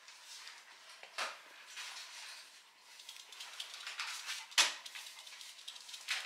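Scattered light clicks and taps on a hard floor, with a sharp knock about a second in and a louder one a little past the middle.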